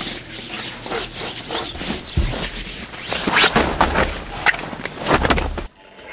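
Hands rubbing and rustling on the tent's groundsheet, first wiping up rainwater with a tissue and then unfolding a fabric air mattress, in irregular scrapes and rustles. The sound cuts off abruptly near the end.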